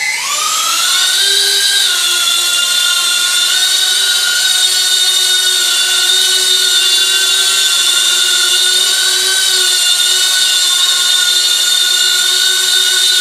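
Blade Inductrix 200 quadcopter's four brushless motors in ducted fans spinning up as it takes off: a whine that rises in pitch over the first second or two, then a steady high whine in flight, wavering slightly in pitch with the throttle.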